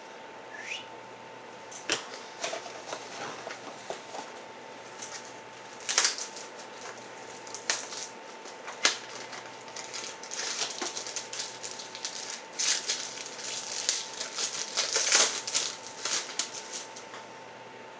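Trading cards and packaging being handled: crinkling, rustling and light clicks, scattered at first and thickest in the second half.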